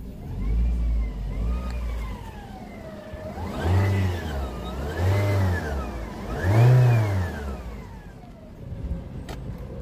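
Toyota Wish engine revved three times, with a whine that rises and falls in pitch along with the revs. The owner takes it for a humming alternator that needs replacing.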